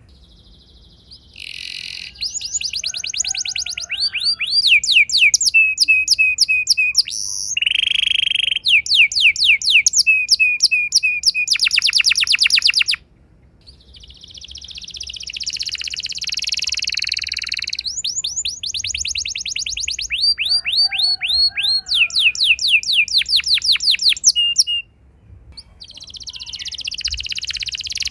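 Domestic canary singing: fast rolling trills of repeated downward-sweeping notes alternating with buzzy phrases, broken by short pauses near the start, about halfway through and a few seconds before the end.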